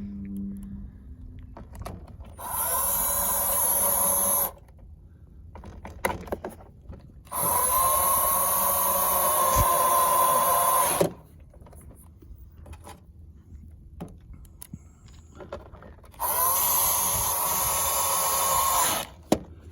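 Cordless drill/driver running in three steady bursts with a whining motor tone, about two, four and three seconds long, driving a screw tight into the generator frame.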